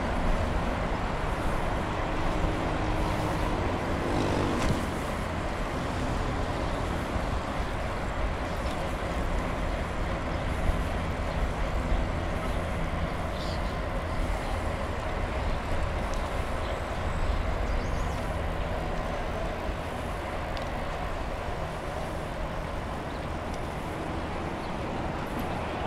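Steady hum of road traffic, recorded from a bicycle riding along a paved path.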